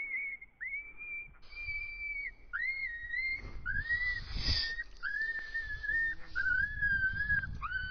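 A string of high, whistle-like coyote whines, about one a second, each sliding up and then holding briefly, as from an electronic predator call coaxing coyotes in. A low rumble runs under the second half, with a short noisy burst about halfway through.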